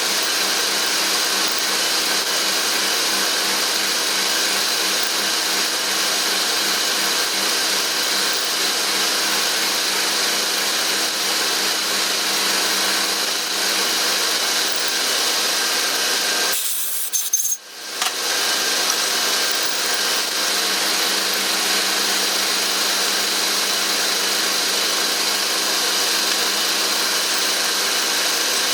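Power tool running steadily as it cuts down a piece of hammer-head stock, facing it off; the grinding noise breaks off briefly a little past halfway, then carries on.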